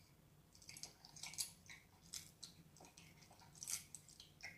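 Quiet, wet mouth sounds of raw live octopus being bitten and chewed: scattered short crackles and squelches, loudest about a second and a half in and again near the end.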